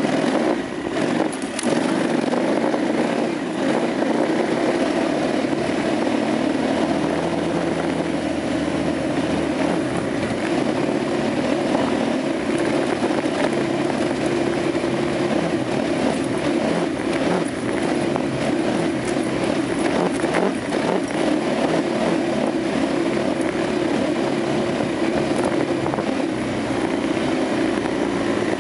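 KTM 950 Adventure's V-twin engine running steadily as the bike rides along a dirt trail, with wind rush on the microphone.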